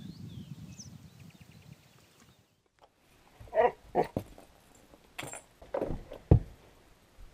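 Several separate knocks and thuds of a horse's hooves on wooden porch boards; the loudest is a heavy thud a little past halfway. A low rumbling noise fills the first two seconds.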